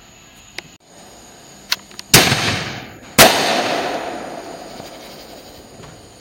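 Aerial fireworks going off: two loud bangs about a second apart, each followed by a long fading rumble. A couple of faint pops come just before them.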